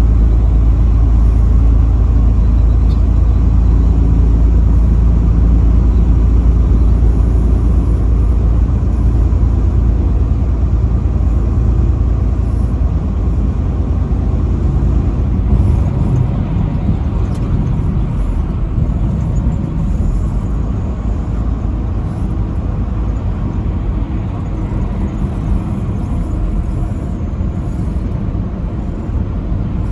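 Semi truck driving on the interstate: a steady drone of engine and road rumble, easing a little after about halfway through.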